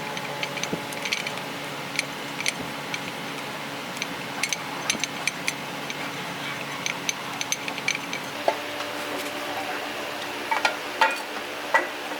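Irregular light metallic clinks and taps of hand tools working on metal parts, over a steady background hum; the taps grow louder and more frequent near the end.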